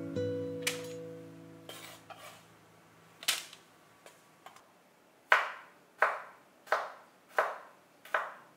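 Guitar music fades out, a few light taps follow, then a kitchen knife chops garlic on a wooden cutting board: five sharp chops, evenly spaced about three-quarters of a second apart.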